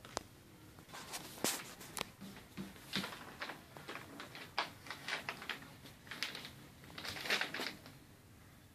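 A plastic carrier bag crinkling and green mangoes knocking against each other as they are put into it, in irregular clicks and short rustles, with a longer rustle about seven seconds in.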